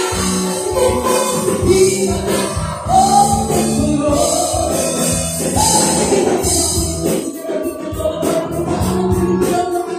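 Live band playing a song: a lead singer over a drum kit and electric guitar, with a steady beat and cymbals.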